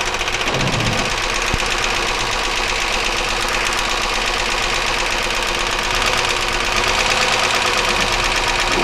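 1999 Chevy Malibu's 3100 V6 idling with a rapid, even internal tapping noise while one spark plug wire is pulled for a cylinder drop test. The noise does not change with that cylinder killed, which the owner takes as pointing to the top end rather than a bottom-end knock.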